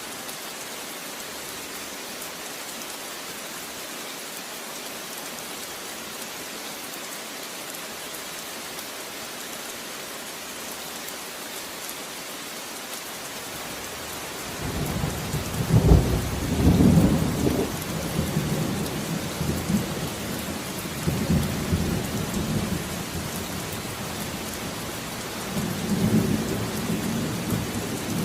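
Steady rain hissing. About halfway through, rolling thunder comes in and rumbles on in long waves, louder than the rain, peaking twice.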